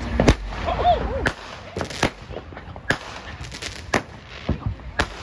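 Consumer ground fountain firework spraying sparks with a steady hiss, broken by sharp, irregularly spaced cracking pops.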